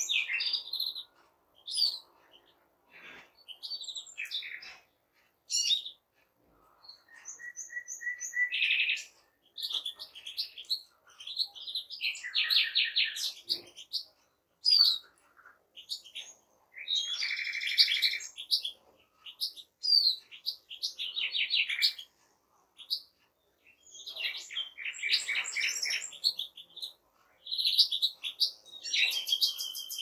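Chorus of European finches (goldfinch, greenfinch and siskin) singing. Bursts of bright twittering, short whistled notes and fast trills follow one another, with brief pauses between phrases.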